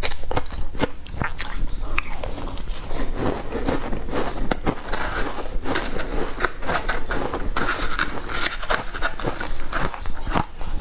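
Close-miked crunching and chewing of crunchy, icy food, a rapid irregular crackle, with a metal spoon scraping the bowl.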